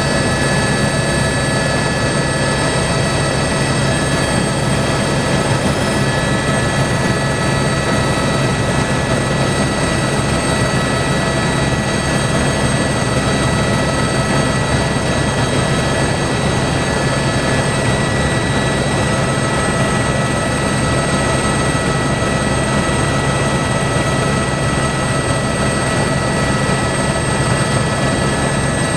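Helicopter in steady flight, heard from on board: a constant loud rotor and engine drone with a steady high whine above it.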